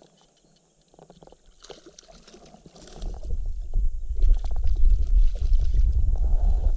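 Clicks and rustles of a baitcasting reel and rod being worked as a fish is brought to the kayak. From about three seconds in, a loud, uneven low rumble of wind buffeting the camera microphone.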